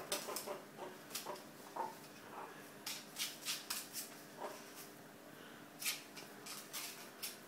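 Short, irregular scuffs and scrapes as a meerkat paws and pushes an empty cardboard toilet roll tube across a tile floor, its claws scratching the tiles.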